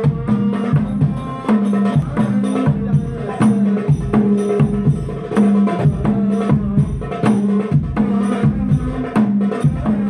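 Hadroh percussion: rebana frame drums and a stick-struck bass drum played in a fast, steady interlocking rhythm, amplified through a home sound system of 15-inch and 12-inch speakers.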